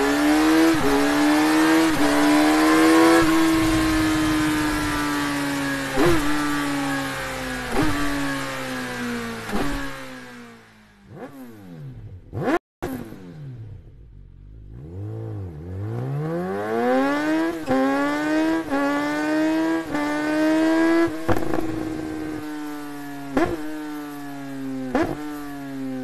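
Kawasaki Ninja 1000SX inline-four engine with an Akrapovič aftermarket exhaust, revving hard, its pitch sweeping up and down. About halfway through the revs fall away low and the sound briefly cuts out before climbing again. Several short sharp cracks stand out near the start and the end.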